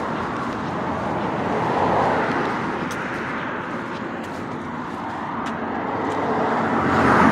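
Cars passing on the street: a steady traffic hiss that swells as a car goes by about two seconds in and again near the end.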